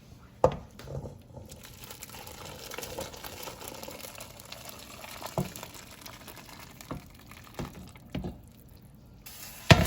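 Soup broth being poured from one pot into another, a steady pouring of liquid, with a sharp knock about half a second in and a few more knocks of the pots through the pour.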